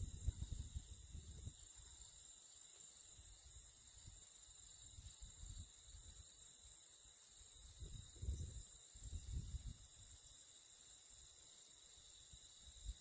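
Faint, steady high-pitched chorus of insects on the prairie. Low gusts of wind rumble on the microphone at the start and again about eight to nine seconds in.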